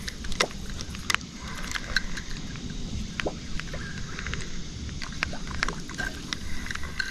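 A kayak on the water: a steady low wash of water and hull noise with scattered knocks and clicks from the boat and gear being handled. Faint short high chirps come now and then in the background.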